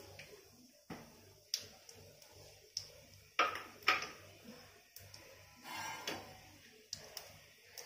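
Light clinks and knocks of kitchenware being handled and set down on the counter, the loudest two close together about three and a half seconds in. About six seconds in comes a short scrape of a steel spatula against a steel bowl.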